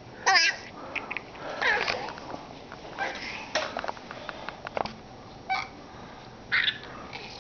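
A toddler's short, high-pitched squeals and babbling cries, a few in all, with scattered light clicks and knocks between them.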